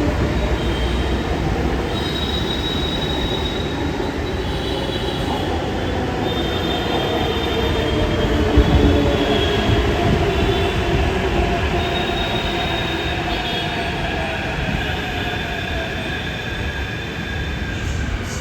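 Metro train running on its rails. High wheel squeal comes and goes over the rumble, and a lower tone slowly slides in pitch.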